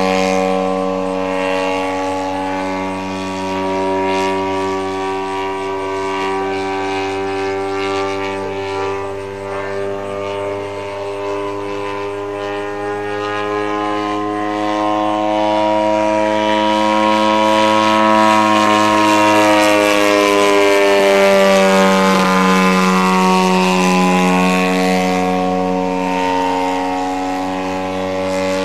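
Engine and propeller of a half-scale radio-controlled Fokker D.VI model biplane droning in flight. The pitch slowly rises, then drops about two-thirds of the way through as the plane passes, and steadies again.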